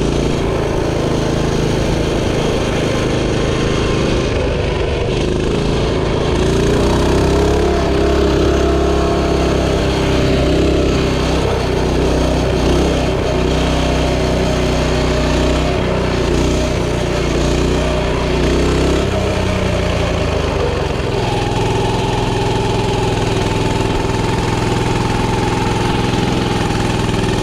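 Coleman CT200U minibike's small single-cylinder four-stroke engine running fast with its throttle stuck open, with no throttle input; the engine note drops and settles lower about two-thirds of the way through.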